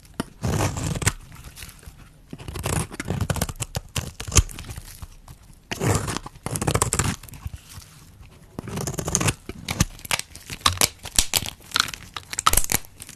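Dry soap being cut with a knife: a series of crunchy, crackling strokes with short pauses between them, the last ones full of fine snapping clicks.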